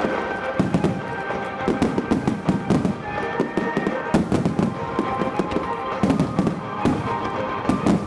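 Fireworks display: shells bursting in quick, irregular succession, many sharp reports and crackles, with sustained tones running underneath.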